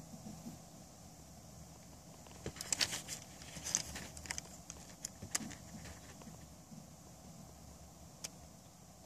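Small plastic Transformers keychain figure being handled in the fingers: a cluster of light plastic clicks and taps from about two and a half to five and a half seconds in, with faint handling rustle either side.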